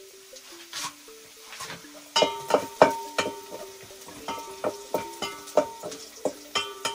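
A wooden spoon stirring in a metal saucepan, knocking repeatedly against the pot from about two seconds in, each knock leaving a short metallic ring. Faint background music plays underneath.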